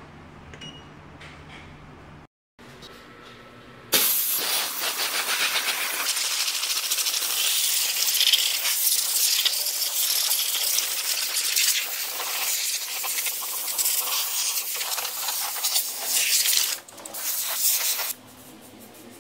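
Monair hybrid steam cleaner's gun blasting dry steam, a loud steady hiss that starts about four seconds in, breaks off briefly, resumes and then stops near the end. Before it, a low steady hum.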